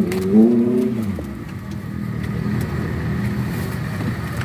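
A motor vehicle's engine passing close by, its pitch falling about a second in, then a steady engine hum over street background noise.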